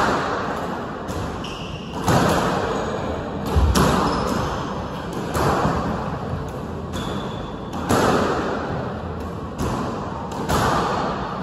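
Squash ball hits echoing around a squash hall, a sharp hit every two to three seconds, from a rally on another court, with a few short high squeaks.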